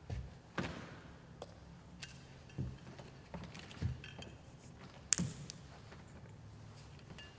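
Scattered light taps and knocks of communion vessels being handled at the altar, with one sharper click about five seconds in.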